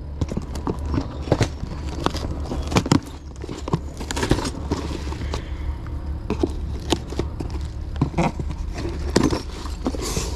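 Hands handling packaging and small parts: irregular clicks and knocks with a stretch of rustling plastic or cardboard in the middle, over a steady low hum.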